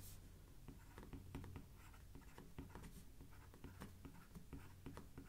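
Faint stylus strokes and taps of handwriting on a tablet screen: many short, irregular light ticks as words are written.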